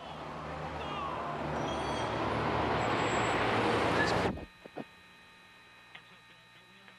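Rumbling roar of 7 World Trade Center collapsing, heard from the street, growing steadily louder for about four seconds and then cutting off abruptly.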